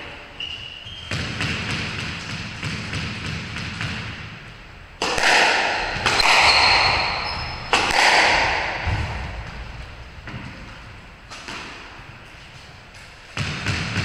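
A squash rally: the ball is struck by rackets and thuds against the court walls again and again, each hit ringing in the echoing court, with a louder run of hits around the middle.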